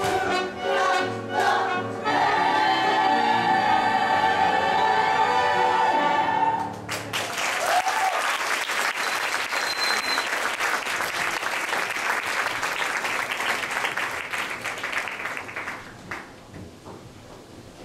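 A musical-theatre cast sings with a live band, holding a big final chord that cuts off about seven seconds in. The audience then breaks into applause with a few whoops and a whistle, dying away near the end.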